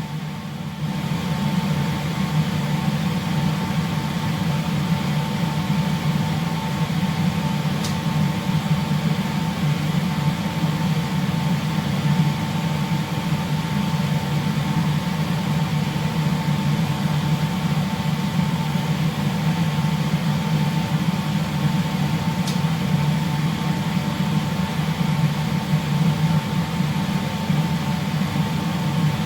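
Steady low machinery hum with a faint steady higher whine over it, unchanging throughout; two faint clicks sound, one about a third of the way in and another past two-thirds.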